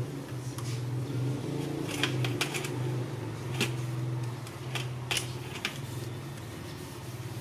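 Sponge scrubbing a glass door pane: a low rubbing drone that comes and goes with the strokes, with a few sharp taps and knocks.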